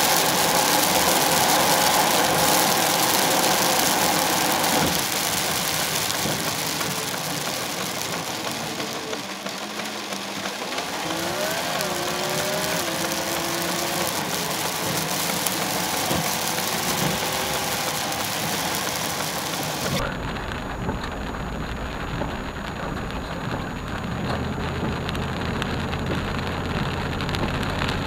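Rain on the car and tyres hissing on the wet road, heard from inside the cabin over the car's engine. About twenty seconds in the sound changes abruptly: the hiss drops away and a lower engine and road hum takes over.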